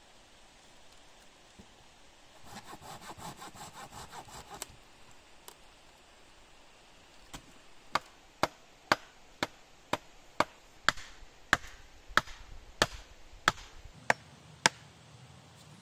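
Wood being worked by hand: a couple of seconds of quick sawing strokes, then a steady run of about a dozen sharp knocks on wood, roughly two a second.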